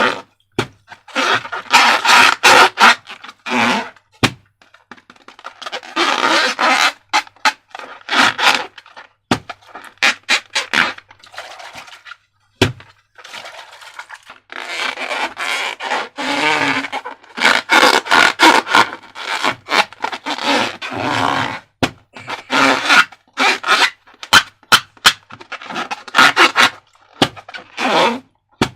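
Slime being squeezed and worked by hand, in irregular bursts of sticky crackling with sharp clicks and short lulls.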